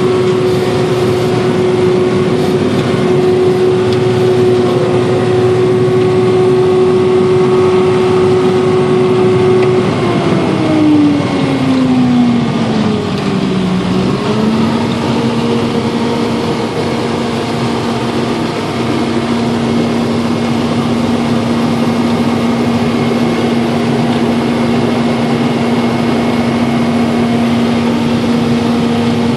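Harvester running steadily with a clear engine hum. About ten seconds in its pitch slides down over a few seconds, dips, then settles at a lower steady pitch as the engine slows.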